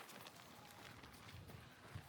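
Faint footsteps, a few soft steps.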